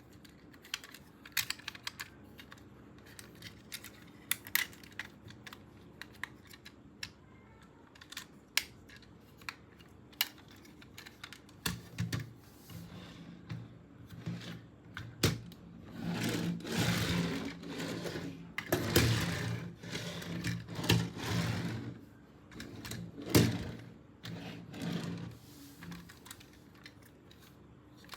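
Plastic toy parts and packaging being handled: scattered sharp clicks and taps, then from about twelve seconds in a low steady hum with bouts of crinkling and rustling.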